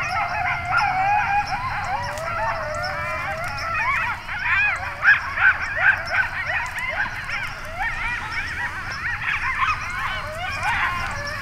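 A chorus of canines yipping and howling together, many quick rising and falling calls overlapping, a little louder about five seconds in.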